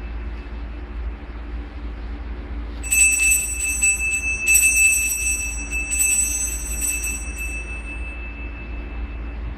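Altar bells rung in three bursts of jingling, starting about three seconds in and dying away near the end: the Sanctus bells marking the elevation of the chalice at the consecration.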